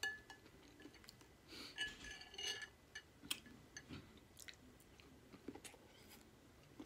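Quiet close-up chewing of soft boiled egg and potato in butter sauce, with scattered sharp wet mouth clicks.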